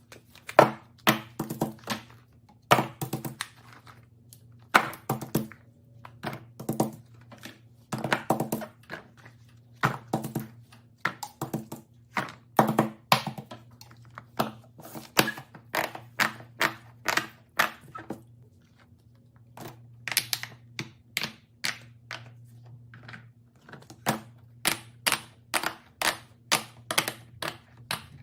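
Small plastic fidget toys being handled, with many sharp clicks and knocks against a hard surface, irregular at first and then a quicker run of about three clicks a second near the end. A steady low hum runs underneath.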